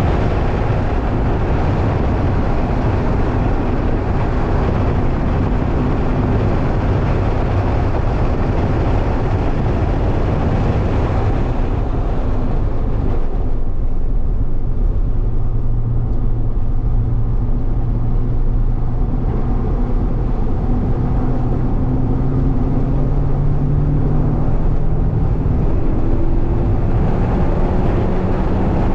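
Mazda MX-5 heard from inside the cabin on track: loud wind, tyre and engine noise at speed, which eases about twelve seconds in as the car slows for a corner. The engine note then climbs steadily as the car accelerates out.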